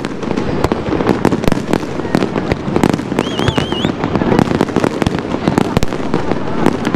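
Fireworks display: a dense run of bangs and crackles from bursting aerial shells, with a brief wavering whistle about three seconds in.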